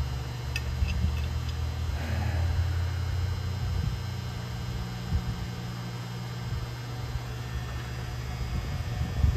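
A steady low electrical hum, with a few light metallic clicks in the first second and a half.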